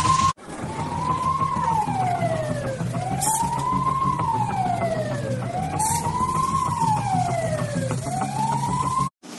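Fire engine siren wailing, rising and falling in a slow cycle about every two and a half seconds, over a steady low rumble. Two short hisses come in the middle.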